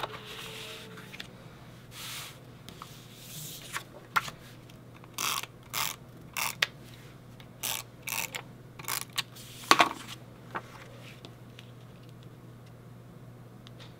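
An adhesive tape runner drawn across the back of a paper mat in about ten short, quick strokes in the middle of the stretch, with softer paper sliding and handling around them.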